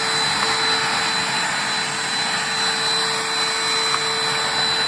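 Cordless handheld vacuum cleaner running steadily, a whooshing hiss with a thin steady whine, as it sucks debris off a desk surface.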